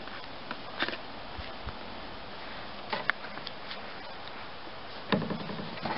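Dogs moving about on a wooden deck and dirt: a few light taps and scuffs over a steady hiss, with a brief low voiced sound, about half a second long, about five seconds in.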